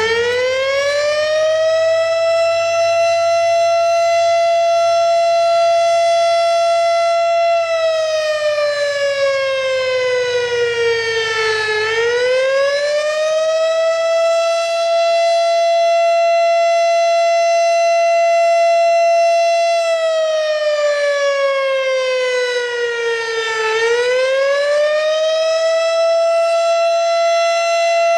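Federal Signal STH-10 electromechanical fire siren sounding the attack signal: a loud single-tone wail that winds up, holds a steady high pitch for about six seconds, then slides back down and winds up again. It falls and rises twice, about a dozen seconds apart.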